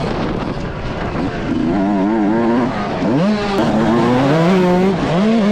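Yamaha YZ125 two-stroke motocross engine revving hard under load, its pitch climbing and dropping repeatedly as the throttle is worked, with a quick wavering about two seconds in. Wind rushes over the helmet-mounted microphone.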